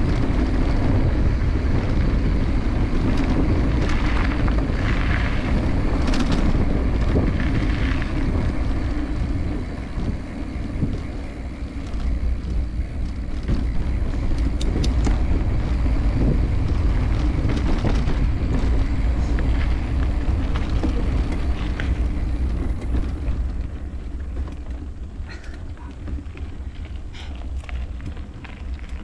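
Wind buffeting the microphone of a camera on a moving bike, with rattles and knocks from riding over a rough dirt track; it eases somewhat in the last few seconds.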